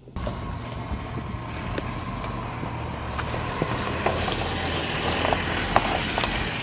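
Jeep Wrangler Unlimited's 3.6-litre V6 running at low speed as the Jeep crawls past over a rocky trail, its engine hum steady and rising slightly near the end. Scattered crunches and clicks come from stones and gravel under the 33-inch all-terrain tyres. The sound cuts in suddenly just after the start.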